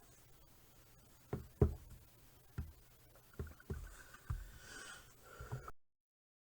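A handful of faint, scattered knocks and clicks, like handling noise close to the microphone, over a low background hum; then the sound cuts off abruptly to dead silence.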